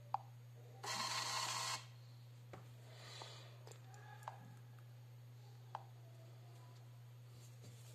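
PT-210 portable 58 mm Bluetooth thermal receipt printer printing a short receipt: one buzzing burst of the print head and paper-feed motor, lasting about a second, starting about a second in. A few light clicks come before and after it.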